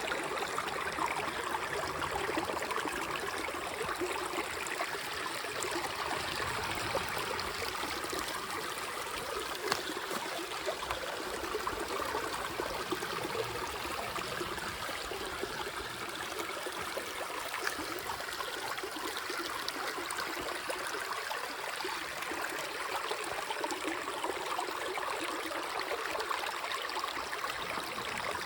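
Running water flowing steadily, like a small stream.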